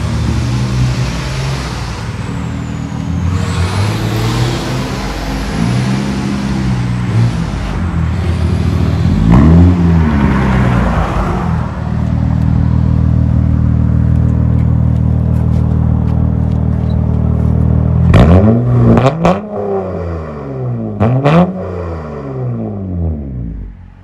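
2006 Acura TL's V6 running through a 3-inch straight-pipe exhaust that keeps the factory catalytic converters, revved in several short blips from idle. It is held at a steady raised rev for about six seconds midway, then blipped several more times and dropped back toward idle near the end.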